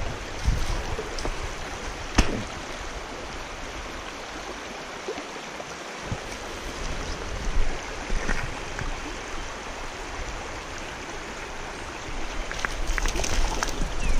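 Small rocky stream flowing over a riffle: a steady rush of water, with a few short knocks on top.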